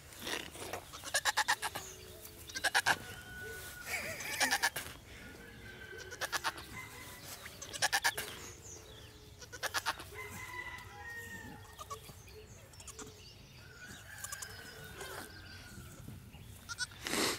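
Domestic goat doe bleating repeatedly while giving birth, loud wavering cries every second or two over the first eight seconds, then quieter calls, and one more loud bleat near the end.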